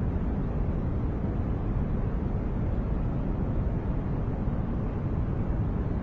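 Continuous steady noise played as 'white noise' for focus and sleep, unchanging throughout. Most of its weight is deep and rumbling, with little hiss at the top.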